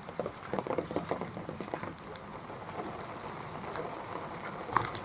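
Footsteps on a wet paved path in steady rain, with a run of step sounds over the first two seconds and an even patter of rain throughout. A single sharp tap sounds near the end.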